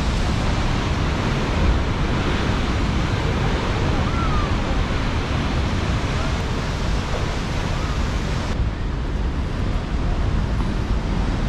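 Heavy surf breaking against limestone sea stacks: a steady, dense rush of waves with a deep rumble, mixed with wind buffeting the microphone. The higher hiss drops away about three-quarters of the way through.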